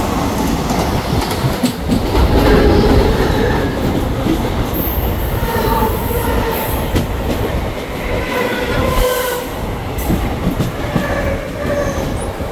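Mumbai suburban electric local train running, heard from inside a carriage: a loud, steady rumble and rattle of wheels on the track.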